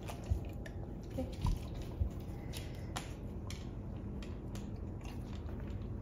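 A dog mouthing and chewing a crispy dehydrated sweet potato treat, picking it up and spitting it back onto a hardwood floor: scattered soft clicks and smacks with a few low thumps.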